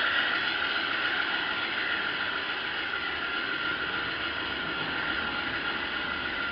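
Steady whirring hiss of a G scale SD45 model locomotive's motor and gearing with its wheels running on the rails, heard close up from a camera riding on the locomotive.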